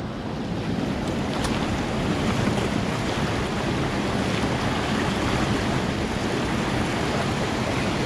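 Mountain stream water rushing and splashing over rocks in a small cascade, a steady rush that stays even throughout.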